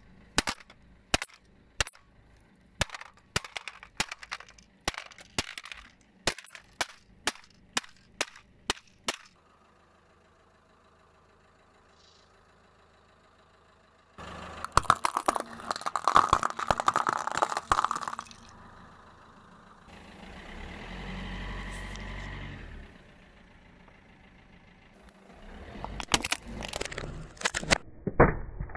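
A hammer striking a hard plastic toy blaster makes a quick series of sharp cracks, two to three a second, for about nine seconds. After a quiet gap, seashells crackle and crunch under a car tyre for about four seconds, followed by a low rumble. Near the end a plastic toy car cracks and crunches as the tyre crushes it.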